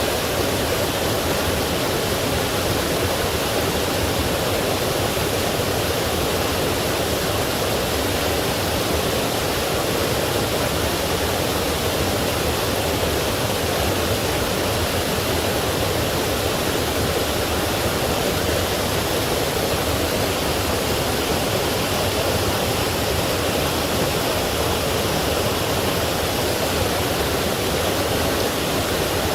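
Forest stream rushing over small waterfalls: a steady, even rush of water that doesn't change.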